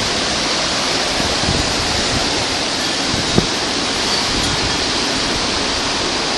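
Storm winds of about 70 mph rushing, a loud, steady noise, with one brief knock about three and a half seconds in.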